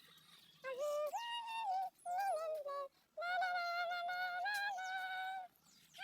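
Background song: a high singing voice holds and bends notes in short phrases, with brief gaps between them.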